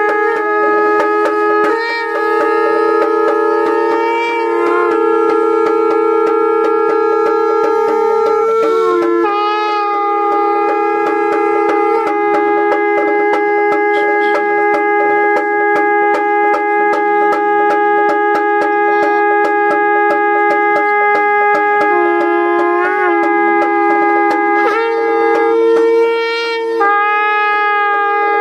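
A wind instrument plays long held notes with wavering ornaments over a steady drone, as ritual music.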